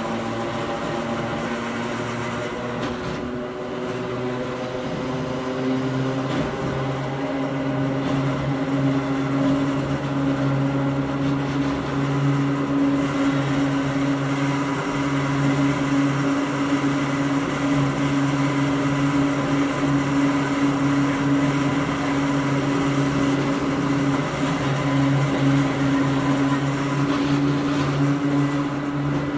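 Hakone Tozan Railway Moha 1 electric railcar under way, heard from inside the car. Its nose-suspended traction motors and gearing give a steady whine that rises slightly in pitch a few seconds in and then holds level over the running noise.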